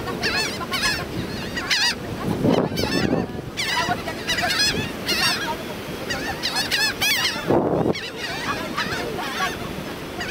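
A flock of laughing gulls calling, short cries repeated in quick, overlapping runs.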